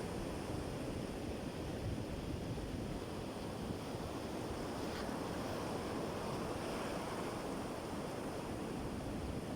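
Sea surf washing steadily onto a beach, a continuous rush of water with no separate wave breaks standing out.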